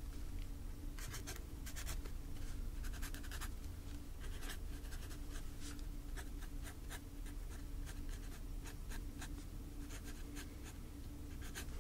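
Writing on paper close to the microphone: many short, irregular scratchy strokes, with small pauses between them.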